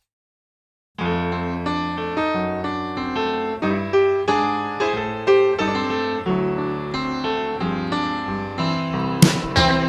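Background music: a piano-led instrumental that starts about a second in, with a fuller band coming in near the end.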